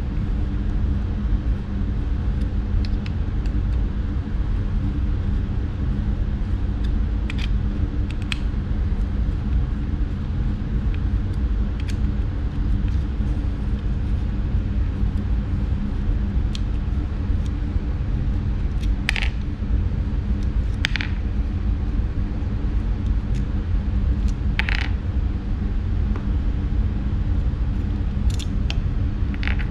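Steady low rumbling hum with a few faint steady tones, broken by scattered light clicks and short scrapes of a small hex driver and metal brushless-motor parts being handled, the clearest about 19, 21 and 25 seconds in.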